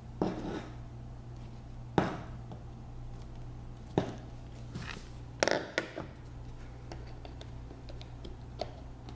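Handling knocks and taps as rope lacing and pliers are worked through the hole in a catamaran hull's corner casting. There are a handful of sharp knocks a couple of seconds apart, with a quick cluster a little past halfway, over a steady low hum.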